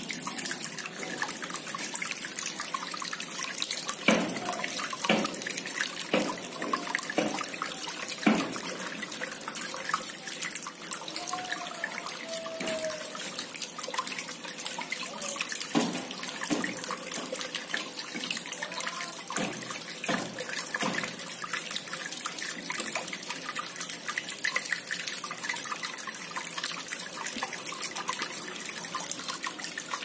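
Small cement tabletop waterfall fountain running, fed by an aquarium pump: water bubbling from the top spout and trickling down the tiers into the basin as a steady splashing, with irregular louder plops and plinks of falling drops.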